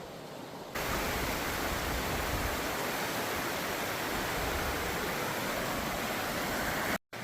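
Waterfall rushing: a steady, dense roar of falling water that cuts in loud less than a second in and drops out briefly near the end.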